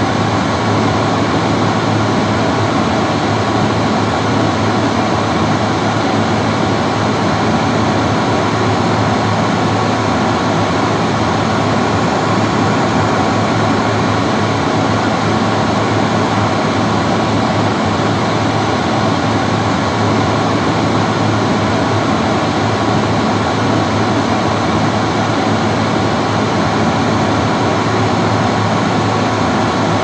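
An old, retro-style bathroom hand dryer running continuously: a steady rush of blown air with a low, constant hum under it.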